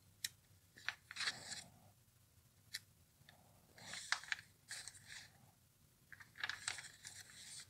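Glossy catalog pages rustling and crinkling as they are turned by hand, in several soft separate flips with a longer rustle near the end.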